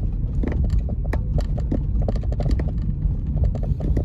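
Car driving on a city street, heard from inside the cabin: a steady low rumble from the engine and road, with scattered small clicks and rattles throughout.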